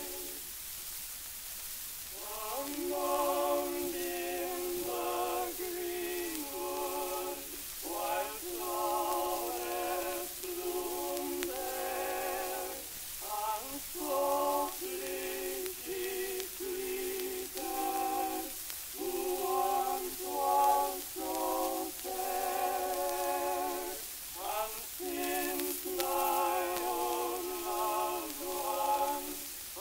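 Unaccompanied male vocal quartet singing slow close harmony with vibrato, from a 1909 Victor 78 rpm disc. The voices sound thin with no bass, under a steady hiss of record surface noise.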